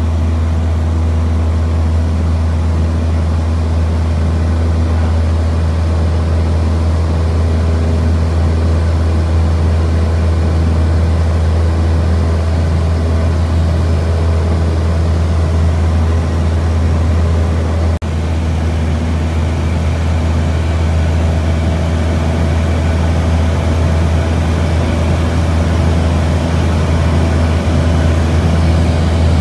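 Steady, loud drone of a light aircraft's engine and propeller, with one brief dip partway through.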